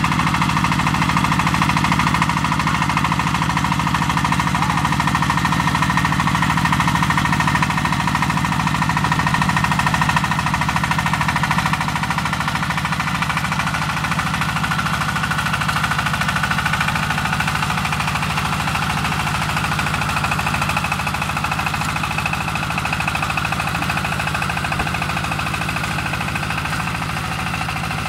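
Single-cylinder diesel engine of a 12–22 hp walking tractor running steadily under load with a rapid, even chug, driving its rotary tiller through the soil.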